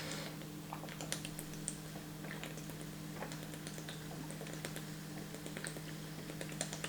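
Sparkling water fizzing in a glass: a faint, irregular crackle of tiny clicks and pops from the bursting bubbles, over a steady low hum.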